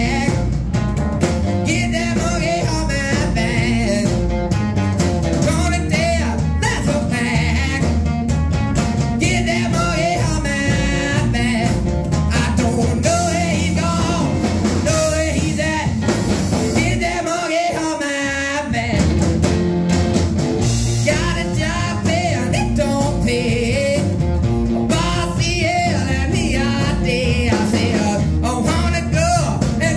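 Live rock and roll band playing: a man singing over a hollow-body electric guitar, upright double bass and drum kit. Just past halfway the bass and drums stop for a moment, then the full band comes back in.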